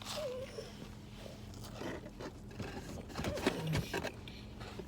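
Biting into and chewing a soft, slightly crunchy chocolate cookie: quiet mouth and chewing noises with scattered small clicks.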